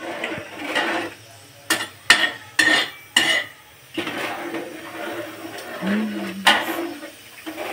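Metal pots, dishes and cutlery being handled, with several sharp clanks: four in quick succession from about a second and a half to three seconds in, and one more later.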